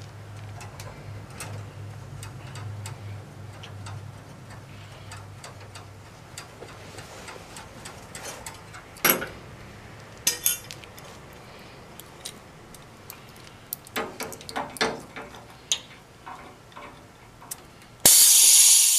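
Scattered light clicks and taps of hands handling the copper tubing, then near the end a sudden loud hiss as the pressurized holding charge rushes out of a new Trane evaporator coil's copper line stub. The pressure shows the coil is not leaking.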